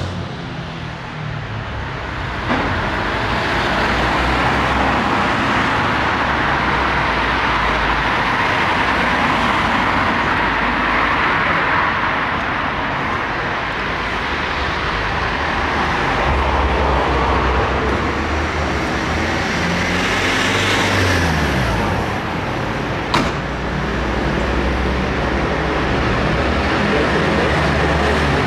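Road traffic going by: a steady wash of passing vehicles, with one engine note falling away about two-thirds of the way through and a single sharp click later on.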